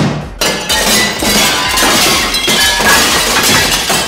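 Cartoon brawl sound effect: a loud, unbroken jumble of crashes, clinks and breaking glass.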